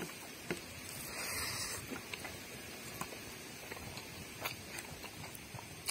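Mukbang eating sounds of a person eating rice and curry by hand: scattered soft clicks of chewing and of fingers gathering rice on a plate. A brief hiss of noise comes about a second in.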